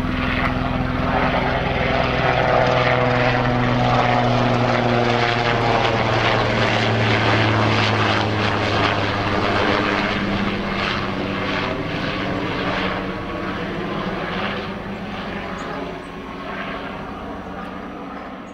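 Helicopter flying low overhead: a loud engine and rotor drone whose pitch drops a little as it passes, then slowly fades away over the last few seconds.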